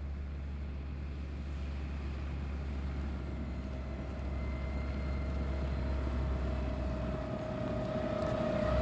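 Tractor engine and PTO-driven Shelbourne Reynolds Powerspread Pro manure spreader running steadily: a low drone with a thin steady whine above it, growing slowly louder.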